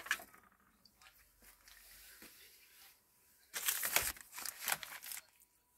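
Plastic zip-top bags crinkling and rustling as a hand rummages through a plastic basket of bagged items, in a burst of just under two seconds about three and a half seconds in, with fainter handling sounds before it.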